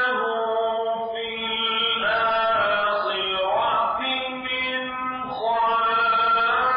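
Quran recitation in Arabic: a single voice chanting the verses in long held notes with melodic slides between pitches, a little softer in the middle and fuller again near the end.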